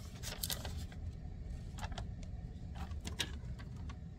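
A sheet of paper being handled, rustling with a few scattered crackles over a low steady hum.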